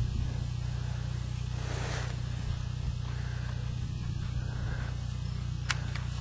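A horse cantering on sand arena footing after landing a jump, its hoofbeats soft under a steady low outdoor rumble; two sharp clicks near the end.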